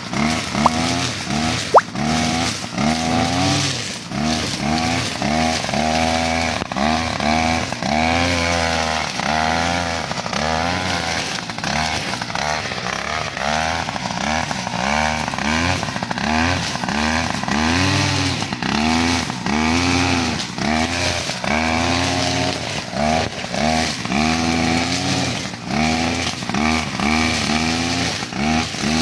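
A petrol brush cutter's engine running, its pitch rising and falling about once a second as the throttle is worked while cutting. Two sharp clicks come in the first two seconds.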